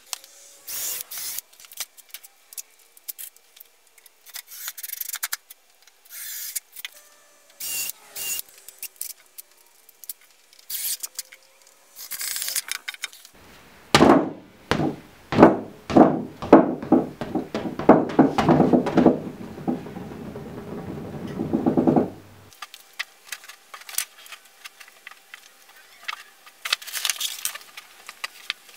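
Workshop handling noises: scattered knocks and clatters on wood, then, about halfway through, a run of heavy thumps with rubbing as an inflated exercise ball is pushed and bounced down into a round hole cut in a plywood board. Lighter knocks follow.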